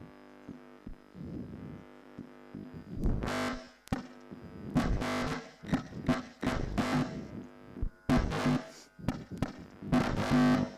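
Experimental electronic noise music from a home-built amplified guitar-string and laser instrument: distorted, buzzing bursts about five times, each starting and cutting off abruptly, with a quieter hum between them.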